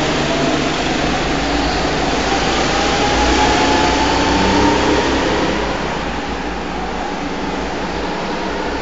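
Go-kart engines running around an indoor circuit, one engine's note climbing in pitch as it accelerates over the first five seconds and then fading as it moves away.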